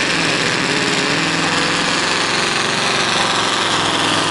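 Scania V8 diesel engine of a pulling truck running flat out under heavy load as it drags the weight sled, loud and steady.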